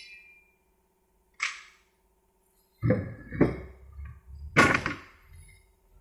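Sawn wooden boards knocking and clattering onto a wooden pallet frame as they are laid out: a string of hollow wooden thunks starting about three seconds in, the loudest near five seconds. A short hiss comes about one and a half seconds in.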